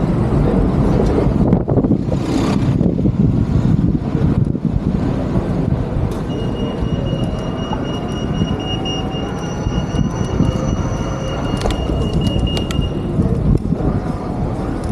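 Rail vehicle running with a heavy rumble and a high, steady wheel squeal that starts about six seconds in and stops about thirteen seconds in.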